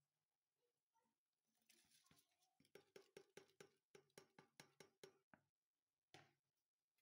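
Near silence, with a faint run of quick ticks, about four a second, for some three seconds in the middle.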